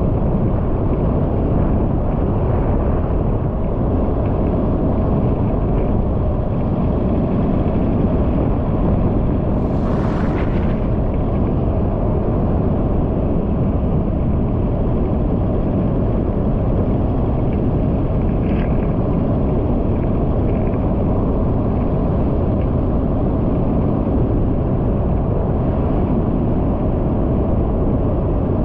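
Steady rumbling wind and road noise from a vehicle travelling at about 50 km/h on a paved road, heard on the camera's microphone. A brief hiss comes about ten seconds in.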